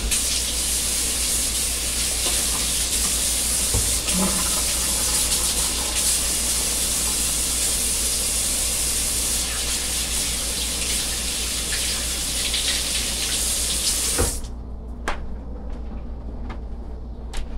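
Kitchen faucet running steadily into the sink for about fourteen seconds, then shut off.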